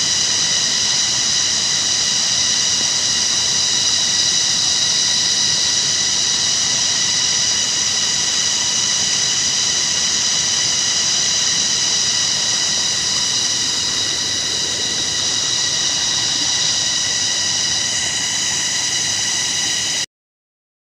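Rushing of a shallow stream over rocks under a loud, steady, high-pitched drone of several even tones; both cut off suddenly near the end.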